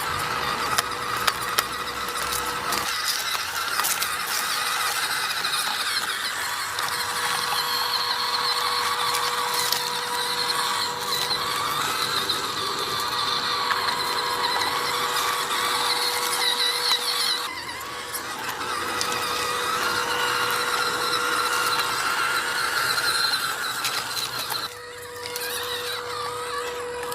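Electric motor and gearbox of an MN82 4×4 RC crawler whining as it drives, the pitch wavering with throttle, with a few sharp clicks near the start. The whine drops away briefly twice, in the middle and near the end.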